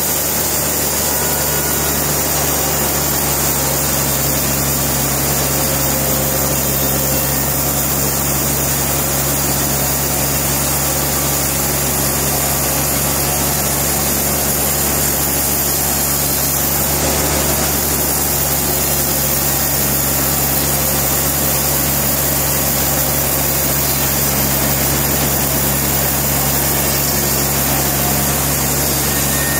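Sawmill machinery running steadily, a constant hum that holds the same pitch throughout.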